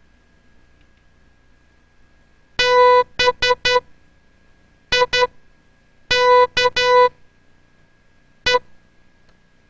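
Morse code practice tones: a buzzy electronic tone keyed on and off in dots and dashes, sent slowly with long gaps between letters. It spells B-I-K-E (dah-dit-dit-dit, dit-dit, dah-dit-dah, dit).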